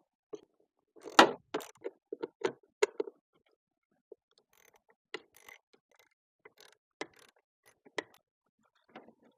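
Irregular clicks and knocks of hard plastic and metal parts being handled and fitted while a heater blower motor is set back into a truck's heater housing. A quick cluster of clicks comes about a second in, and scattered single ticks follow later.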